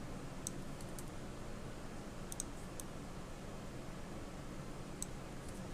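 Scattered sharp clicks of a computer mouse and keyboard, in small groups, over a faint steady low hum.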